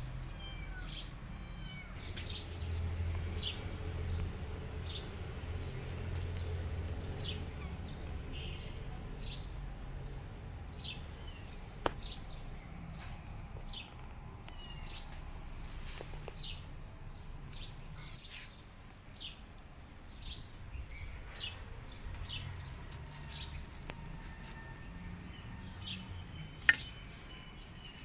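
A tiny kitten mewing over and over in short, high-pitched cries, roughly one a second, with a sharp click near the end.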